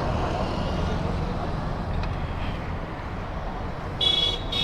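Steady low rumble of a running engine amid road traffic, with a vehicle horn beeping twice in quick succession near the end.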